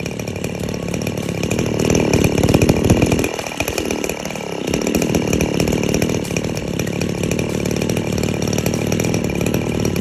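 Two-stroke engine of a STIHL FS 3001 brush cutter, just pull-started, running with a crisp sound. It grows louder over the first few seconds, dips briefly, then runs steady.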